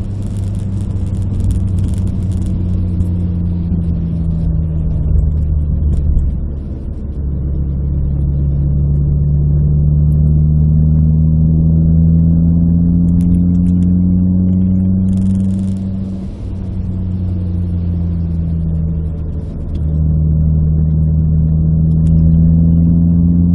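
Renault Clio RS 172's 2.0-litre four-cylinder engine heard from inside the cabin, pulling through the gears. Its note climbs steadily, then dips briefly with a gear change or lift-off about six seconds in and again at about sixteen and twenty seconds, before climbing again.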